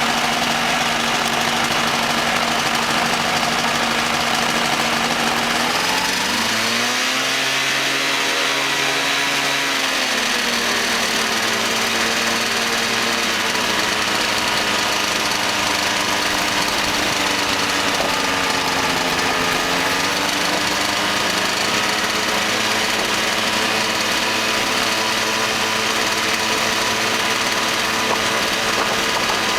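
Ultralight aircraft engine running steadily. About six seconds in its pitch rises and holds for a few seconds before settling back, and later it briefly dips and picks up again.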